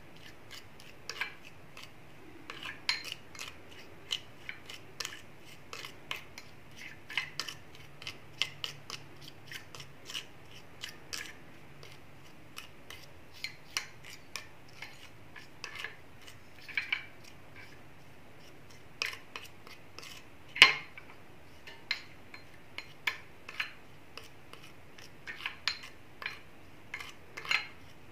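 Spoon stirring a paste of ginger, salt, lime juice and toothpaste in a ceramic bowl: irregular light clicks and scrapes against the bowl, with one sharper knock about twenty seconds in.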